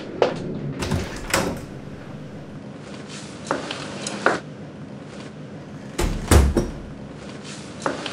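A wooden front door is unlatched and swung open about a second in, with a few light clicks after it. About six seconds in the door is shut with a heavy thud, the loudest sound.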